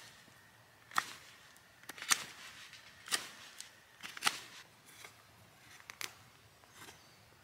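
Knife made from a file carving a wooden spindle stick, sharp short cutting strokes about once a second with fainter scraping between them as slivers are shaved off the wood.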